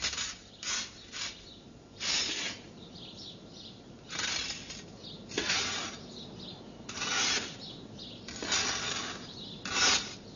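Scythe swishing and scraping over a hard floor: a series of short hissing strokes, about one every second or so.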